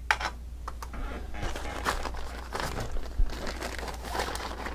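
Irregular rustling and crinkling of a backpack and the gear in it being handled, with a few light clicks and one low knock.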